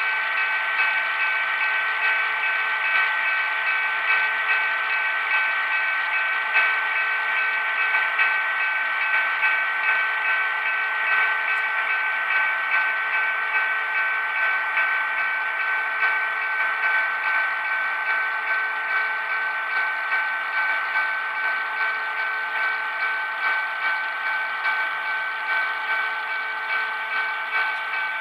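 The sound decoder of an HO-scale Walthers P2K SW9/1200 switcher plays a simulated EMD 567 diesel engine at a steady low throttle through the model's small speaker, with an even, rhythmic pulse, as the locomotive runs at DCC speed step 10.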